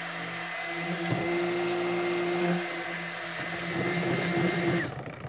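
Handheld immersion stick blender running steadily in a jug of soap batter, mixing colour into it. It is switched off shortly before the end, its whine dropping in pitch as the motor stops.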